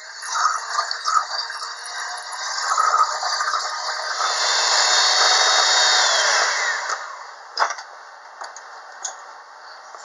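Electric hand mixer running, its beaters creaming butter, sugar and flour in a stainless steel bowl. It grows louder toward the middle, then winds down with a falling whine about seven seconds in, followed by a short knock.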